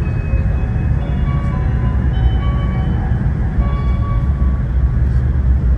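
Hokuriku Shinkansen train running, a steady deep rumble, with a light melody of short high notes over it.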